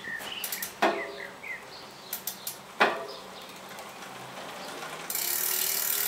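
Mountain bike wheel turned by hand, its hub clicking in a few scattered ticks, with two louder clicks about a second in and near the three-second mark. A steady hiss sets in suddenly about five seconds in.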